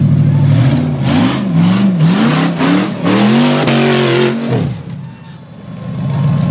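Rock bouncer buggy on tractor tires revving hard in repeated surges as it climbs a steep dirt hill, engine pitch swinging up and down with tires spinning and spraying dirt. About four and a half seconds in, the throttle comes off and the engine drops away for a moment, then picks up again near the end.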